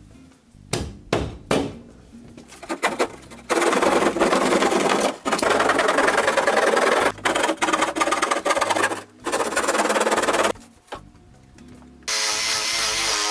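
Drywall being cut out by hand: a few sharp knocks, then several seconds of quick rasping strokes as a blade saws through the gypsum board. Near the end the loosened panel is pulled, with a scraping, creaking sound.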